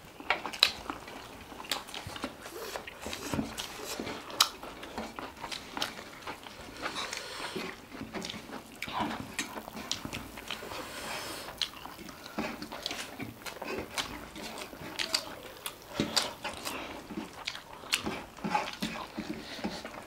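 Close-miked eating of rice and fried chicken: wet chewing and lip smacks, a dense, irregular string of short clicks.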